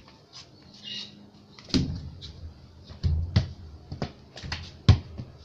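A football being kicked and bouncing off concrete walls and ground: a string of sharp thuds that starts about a second and a half in and comes faster and louder near the end.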